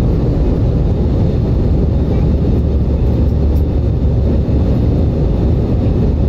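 Steady, deep cabin noise of an Airbus A320 in flight: jet engines and rushing air heard inside the passenger cabin, unchanging in pitch and level.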